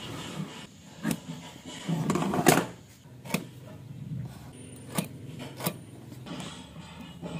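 A steel rule and metal square being set against a wooden block for marking out, with a marking pen drawing along the metal edge: a rubbing scrape about two seconds in and a handful of sharp clicks and taps of metal on wood.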